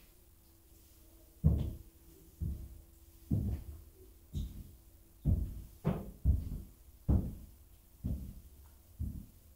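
Slow footsteps, a dull low thud about once a second, over a faint steady hum.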